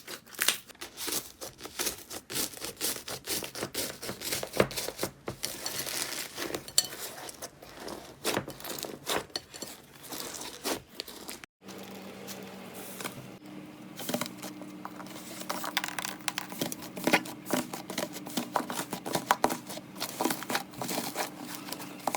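Slime being squeezed and pressed by hand, making dense crackling and small popping clicks. The sound cuts out briefly about halfway through and resumes in a second clip with a faint steady hum under the crackles.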